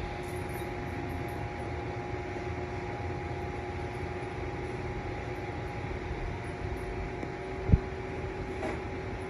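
Steady whirring hum of an electric fan running. A single dull thump sounds about three-quarters of the way through.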